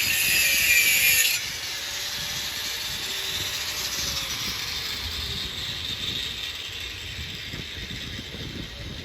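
A power grinder working metal on the exhaust pipe, a loud harsh rasp for about a second and a half. Its high whine then slowly drops in pitch as the disc spins down.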